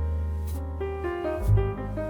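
Instrumental background music: a piano melody over a low bass line, with a soft cymbal tap about once a second.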